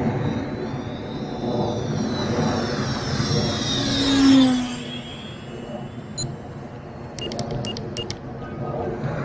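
Dynam Meteor V3's 12-blade 70 mm electric ducted fan whining as the RC jet makes a low fly-by. The whine grows louder and peaks about four seconds in, then drops in pitch and fades as the jet goes past.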